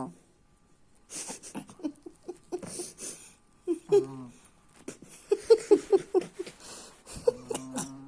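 People stifling laughter, with breathy giggles and a quick run of laughing bursts about five seconds in, while a small dog snores.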